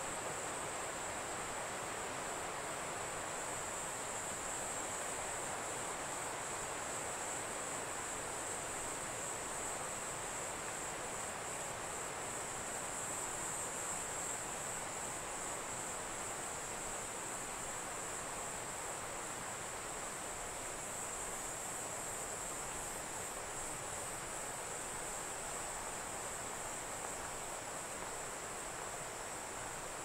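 Valley stream running steadily, with a continuous high-pitched insect chorus over it.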